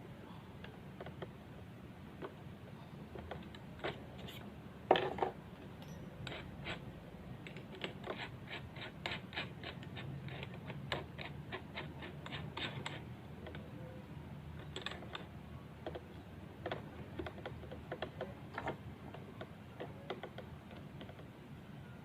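Scattered light clicks and taps of small hard parts being handled, with one louder knock about five seconds in.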